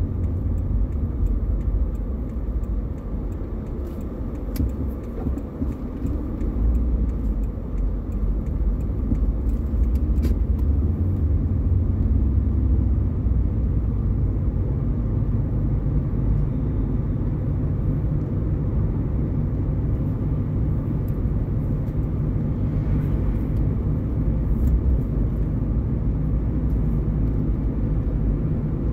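Car road and engine noise heard from inside the cabin while driving: a steady low rumble that dips for a moment about four to six seconds in, then settles into an even, slightly stronger rumble.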